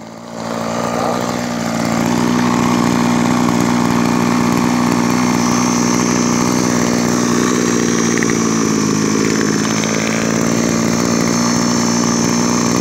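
Mitsubishi TB26 brush cutter's 26cc two-stroke engine running, picking up over the first couple of seconds and then holding a steady speed.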